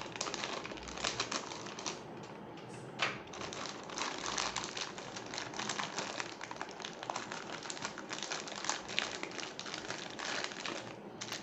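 Thin plastic packaging crinkling and rustling in a steady stream of small irregular crackles as it is unwrapped from a metal grill part.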